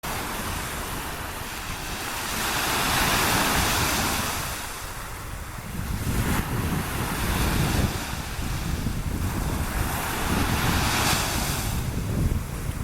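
Small waves breaking and washing up a sandy beach, the surf swelling and ebbing every few seconds. Wind buffets the microphone, adding a steady low rumble.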